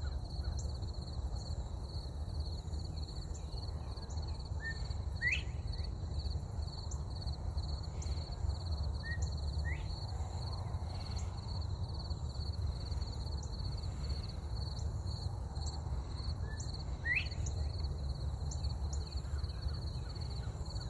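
Northern bobwhite quail whistling its 'bob-white' call about three times, each a short note followed by a rising whistle, several seconds apart, with another bobwhite answering. A steady high insect drone and a low rumble run underneath.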